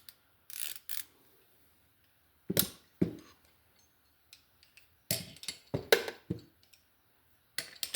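Steel hand ratchets knocking and clinking against each other and the drawer as they are handled and set down: a scattering of separate sharp metal clacks, some in quick pairs.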